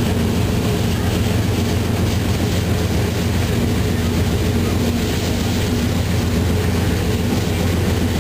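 DXC-class diesel-electric locomotive running steadily under way, a continuous low drone with a faint steady hum above it, heard from the cab.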